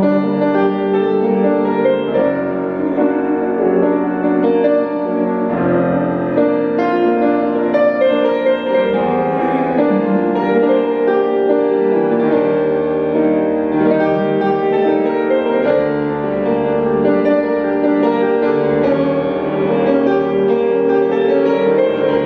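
Piano playing a solo instrumental interlude of a song, with the singer silent.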